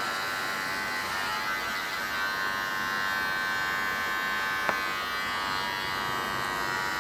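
Electric hair clippers buzzing steadily as they cut hair on the back and sides of a head down to zero, with a single sharp click about two-thirds of the way through.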